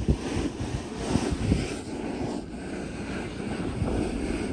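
Wind gusting over the microphone in uneven low rumbles, over a steady rushing roar.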